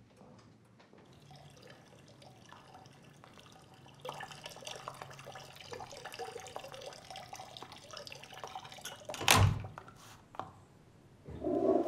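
A metal lever door handle is worked over and over, clicking and rattling, and about nine seconds in there is one loud knock on the door. The handle moves without freeing the door because the latch tongue has dropped and jammed.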